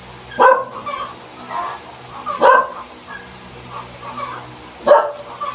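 A dog barking three times, short sharp barks about two and a half seconds apart.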